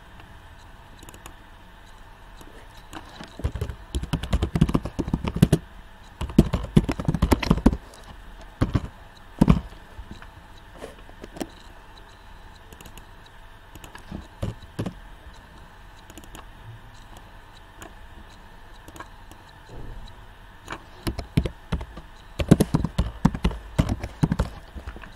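Typing on a computer keyboard: several bursts of quick keystrokes with pauses between them. There are runs about four and six seconds in, and a longer run near the end.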